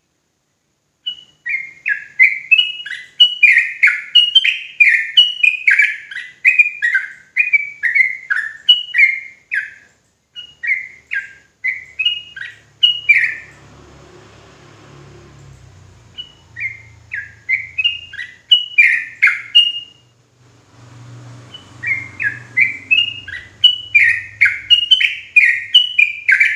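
Yellow-vented bulbul (trucukan) singing its fast chattering song, the run that bird keepers call ropelan: quick short falling notes, about three a second, in three bouts broken by two short pauses.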